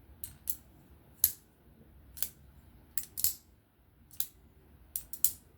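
Titanium folding knife being opened and closed by hand: a series of sharp metallic clicks and snaps, some in quick pairs, as the blade swings out and locks and the detent catches on closing.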